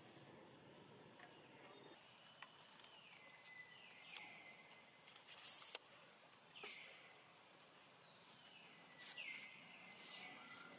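Faint outdoor ambience with about five short animal calls that fall in pitch and level off, spread through the second half, plus a few soft clicks and brief hissy rustles.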